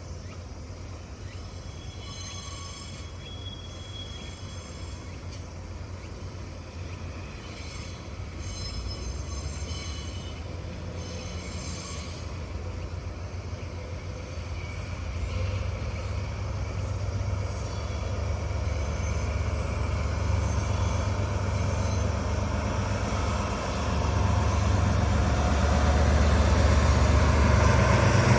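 Diesel locomotive hauling a container freight train, its engine running with a low steady hum that grows louder as it draws closer. There are short high-pitched wheel squeals in the first half.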